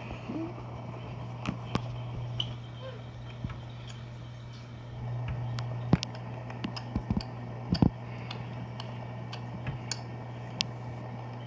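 Steady low hum of aquarium equipment such as a pump or filter, with scattered sharp clicks and taps, several bunched together about six to eight seconds in.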